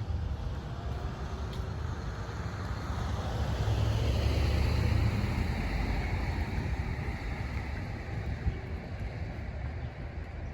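A vehicle passing by, its noise swelling to a peak about four to five seconds in and then fading, over a steady low rumble.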